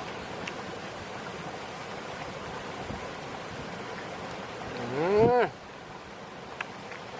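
A single short moo from a cow, rising then falling in pitch, about five seconds in, over a steady hiss of wind across the rice field.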